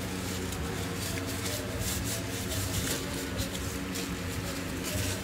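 Room background: a steady low hum with faint small rustles and clicks.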